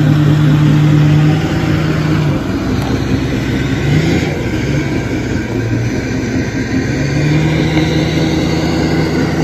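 A vehicle engine running with a steady low hum. Its pitch drops about midway and rises again near the end.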